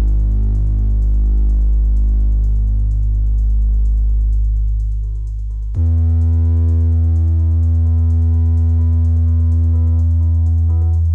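Background music: a deep, sustained synthesizer drone with heavy bass. It changes to a new chord about six seconds in, and short notes come in near the end.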